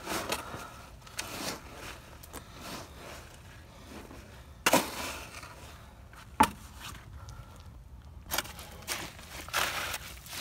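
A stir stick scraping and knocking in a bucket of wet Quikrete concrete mix as it is stirred, with two sharp knocks around the middle and a quicker run of scrapes near the end.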